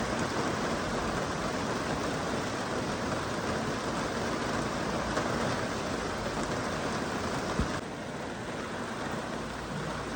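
Steady heavy rain, an even hiss of falling water. About three-quarters of the way through there is a brief low thud, and the rain then turns abruptly a little quieter and softer.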